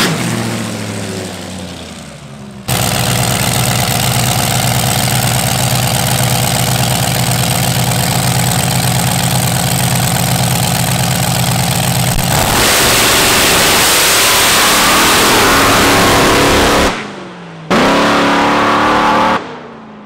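Supercharged 6.6L Duramax diesel drag engine in a dragster. It winds down with falling revs, then runs loud and steady at a fast idle, growing louder about twelve seconds in. Near the end the sound cuts out abruptly twice, with a brief rise in revs between the cuts.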